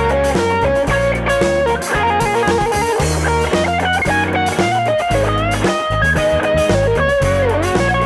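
Band playing an instrumental break: an electric guitar plays a lead line with bent notes over bass guitar and a drum kit.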